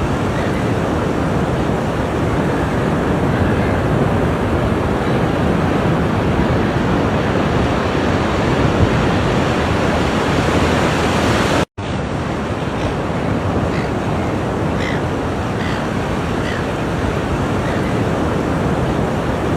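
Ocean surf washing steadily onto the shore, a continuous loud rushing of breaking waves. The sound drops out to silence for an instant about twelve seconds in.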